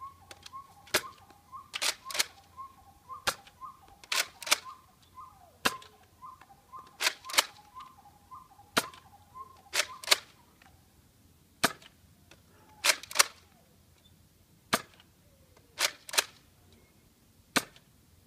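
Nerf Retaliator dart blaster being primed and fired over and over: sharp plastic clacks and spring shots, about twenty in all, many coming in quick pairs.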